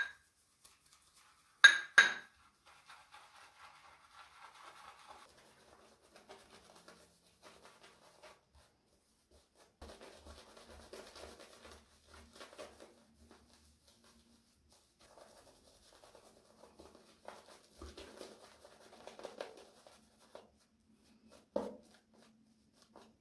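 Synthetic shaving brush swishing and scratching as it works shaving soap into lather on the neck, in soft stretches. A few sharp clinks come near the start and a knock near the end.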